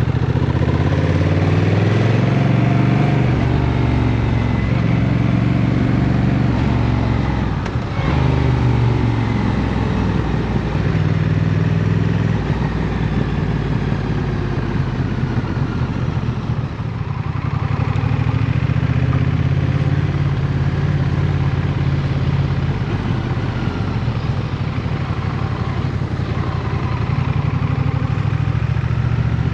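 Honda CMX 1100 Rebel's parallel-twin engine running under way, its revs rising and falling as the bike accelerates and eases off, with a brief break about eight seconds in and a dip in level a little past halfway.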